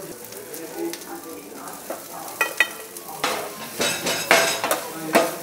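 Egg kottu roti being chopped and stirred with metal blades on a flat iron griddle: a sizzling hiss, then from about three seconds in a run of sharp metal clanks and scrapes of the blades on the griddle.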